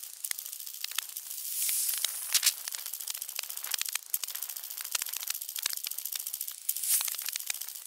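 Handling noise from a camera carried by a runner: irregular clicks and rattles jolted out with each stride, over a faint rustle. A rushing hiss swells briefly about two seconds in and again near the end.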